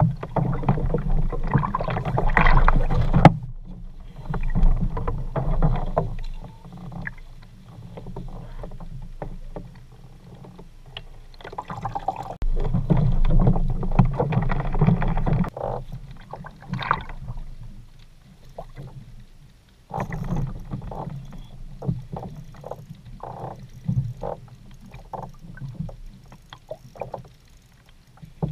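Water lapping and slapping against a fishing kayak's hull at sea, rising and falling in swells, with wind on the microphone and scattered clicks and knocks from rod and reel handling, one sharp click about three seconds in.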